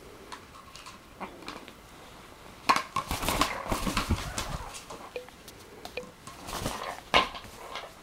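Blue-fronted Amazon parrot attacking an empty plastic bottle. About three seconds in come wing flaps and rustling with irregular sharp clicks and knocks as the bottle is struck and bitten. The scuffle goes on until a last loud click about seven seconds in.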